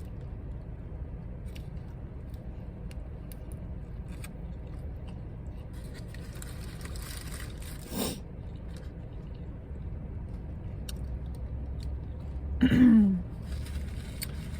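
Faint eating sounds, chewing with small clicks and a rustle of food packaging a little past the middle, over a steady low hum, with two brief voiced murmurs, one about halfway through and one near the end.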